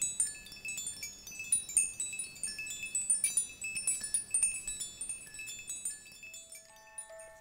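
Many high, tinkling chime notes ringing quickly and overlapping at random. They thin out near the end as a few lower held notes begin.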